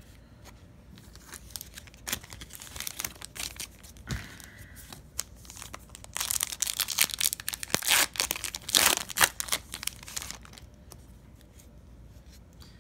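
A Panini Prizm trading-card pack's foil wrapper being torn open and crinkled by hand. The crackling comes and goes at first, is loudest and busiest in the second half, and stops about two seconds before the end.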